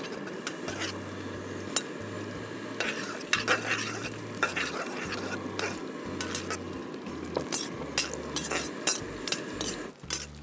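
Cashew nuts frying in ghee in a steel kadai, sizzling steadily, while a steel ladle stirs them and scrapes and taps against the pan in scattered clicks. The sizzle drops away about ten seconds in.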